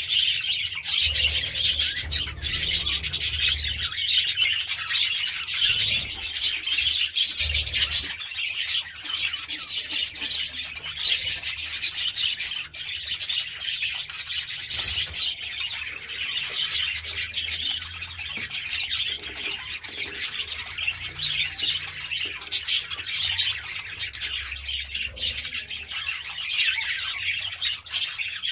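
A flock of budgerigars chattering and warbling, many birds calling at once in a dense, continuous stream of high chirps.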